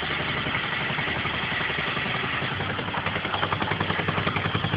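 Small Fichtel & Sachs Wankel rotary engine being spun over by an electric drill held to its shaft, with a steady whirring. About three seconds in, the engine catches and runs on its own with a rapid, even pulsing.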